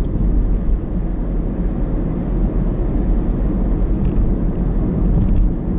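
Steady low rumble of a car driving at speed, heard from inside the cabin: tyre and engine noise with no sudden events.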